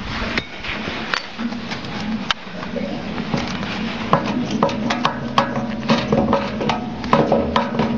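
Scattered sharp clicks and light metal knocks from the pump cylinder of a spraying machine, which is being gripped and turned by hand to open it. A steady low hum comes in about a second and a half in.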